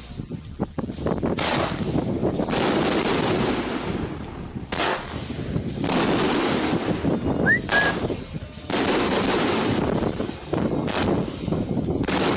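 A 25-shot Thunder King salute cake firing, a shot every second or so, each salute going off as a loud bang that trails into a rumbling echo.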